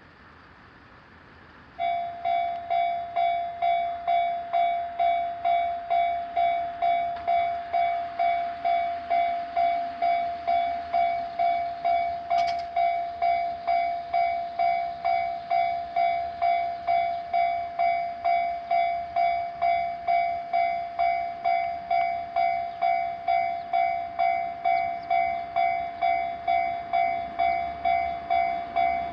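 Japanese railroad crossing warning bell switching on about two seconds in, then ringing a fast, evenly repeating electronic ding: the crossing is activated because a train is approaching.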